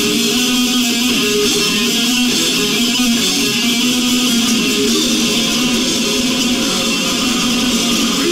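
Death metal band playing live: heavily distorted electric guitar and bass guitar, loud and dense, with no break.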